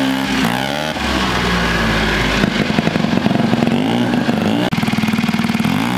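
Turbocharged rotary engine of a home-built ATV running under throttle as the quad is ridden. Its pitch falls and rises about half a second in, holds steady for a while, then climbs again near the end as the throttle is opened.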